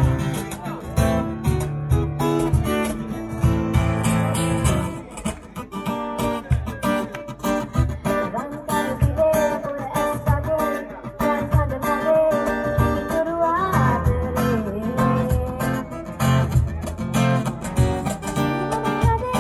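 Strummed acoustic guitar with a singing voice carrying a wavering melody over it: a small live band playing a song.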